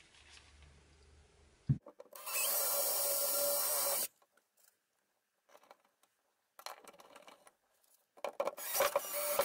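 Small cordless drill running at speed into wood at a metal bracket, in two spells. The first lasts about two seconds, just after a sharp click. The second, rougher one starts near the end.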